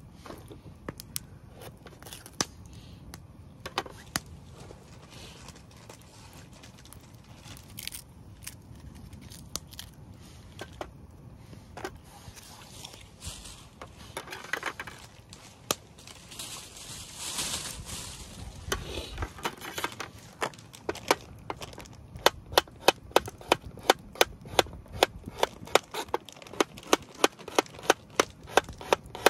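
Kitchen knife chopping food on a cutting board: a few scattered knocks at first, then from about two-thirds of the way through a steady run of sharp knocks, about two to three a second. Two short stretches of a rustling noise come in the middle.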